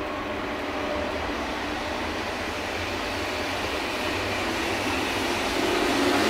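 Double-deck TGV Duplex high-speed train running past, a steady rumble of wheels on rails that grows louder towards the end.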